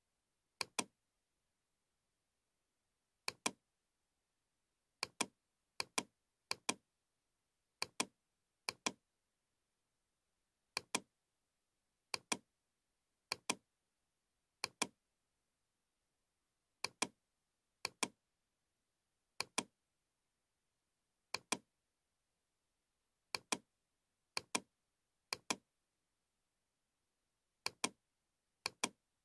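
Computer mouse clicks, about twenty of them at uneven intervals of one to two seconds, each a quick double tick of button press and release, with silence between. Each click places the next control point of a spline being traced in CATIA V5.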